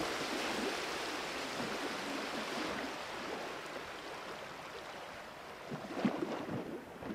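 Steady rushing of sea surf and wind, easing a little over the seconds, with a few faint knocks about six seconds in.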